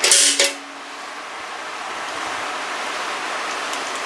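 A spring-loaded automatic center punch snapping against the compressor's metal base: a sharp pop right at the start, with a brief low ring from the metal. After it comes a steady background hiss.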